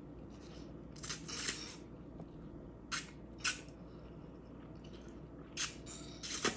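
A person slurping up a mouthful of noodles: a series of short, hissy sucking slurps, the longest about a second in.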